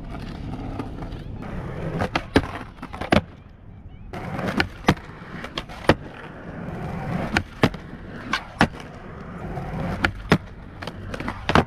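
Skateboard wheels rolling over rough asphalt, with a dozen sharp wooden clacks of the board's tail popping and the board landing, several coming in quick pairs.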